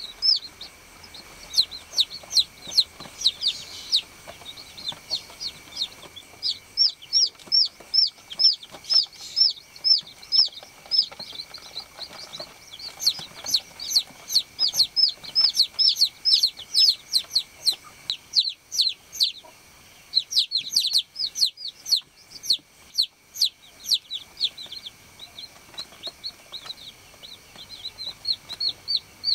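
Baby chicks peeping: runs of short, high-pitched chirps, about three or four a second, broken by brief pauses.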